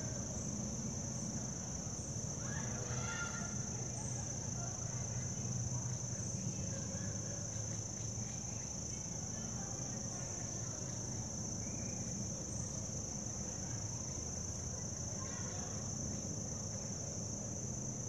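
Steady, high-pitched insect chorus over a low background hum, with faint brief pitched sounds about three seconds in and again near the end.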